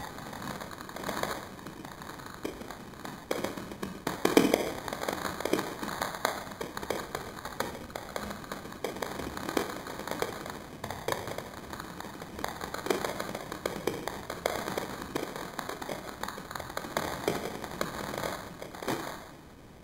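Water from a garden hose, sprayed into the air, falling back in irregular taps and splatters, several a second, with a louder knock about four seconds in.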